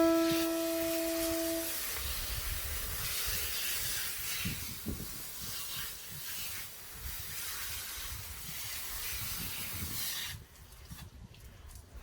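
Water spraying from a hose in a steady hiss, which cuts off abruptly near the end.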